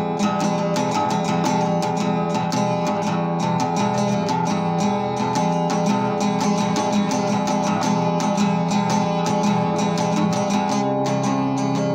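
Acoustic guitar strummed with quick, even strokes, its chords ringing on steadily.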